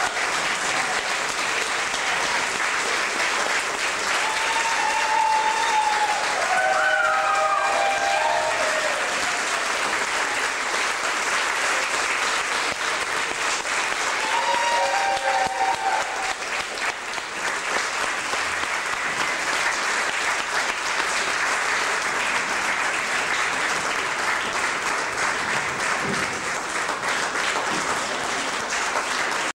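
Audience applauding steadily. A few shouted cheers rise above the clapping about five to nine seconds in, and again about fifteen seconds in.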